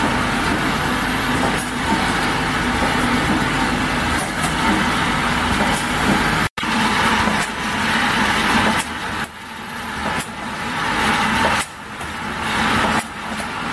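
Automatic bottle filling and capping line running: a steady mechanical noise with scattered light clicks. It cuts out for an instant about six and a half seconds in.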